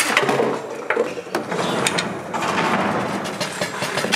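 Foosball play on a Bonzini table: the hard ball cracks against the players and the walls, and the rods and handles clack, giving several sharp knocks in the first two seconds and then a softer jumble of knocks and rattles.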